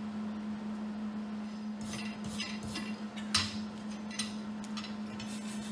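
Light metallic clinks and knocks of freshly welded steel pieces and tools being handled on a workbench, about half a dozen scattered taps with the sharpest about three and a half seconds in, over a steady low hum.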